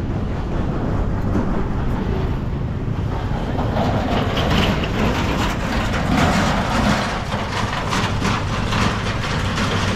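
Steady city street noise: a constant low rumble with scattered clatter, busier from about four seconds in.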